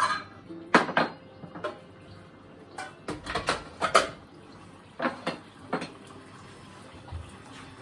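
Dishes and kitchen utensils clinking and clattering as they are handled on a kitchen counter: a string of separate sharp knocks, loudest about a second and again about four seconds in, tailing off after six seconds.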